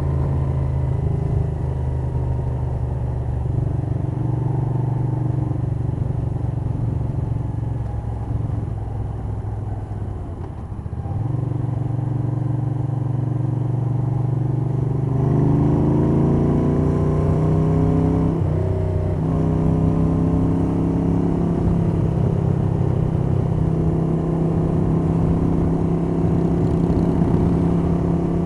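1982 Moto Guzzi 850 Le Mans III's air-cooled V-twin on Lafranconi exhausts running under way, with wind noise and valvetrain clatter, heard through a cloth-wrapped microphone in the rider's jacket pocket. The engine eases off about a third of the way in, then pulls with rising pitch and a brief break partway through the climb before it settles into a steady cruise.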